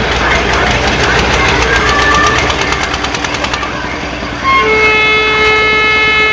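Noisy fairground bustle with voices and a fast clicking rattle, then about four and a half seconds in a loud horn starts suddenly and holds one steady tone.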